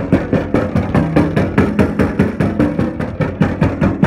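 A mallet rapidly and steadily knocking on a steel panel radiator, about six blows a second. The radiator is being beaten to loosen sludge inside it while the heating system is flushed.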